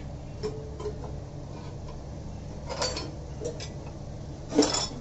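Light clicks and taps of steel cookware and a spoon, with one louder metallic clank near the end, over a steady low hum.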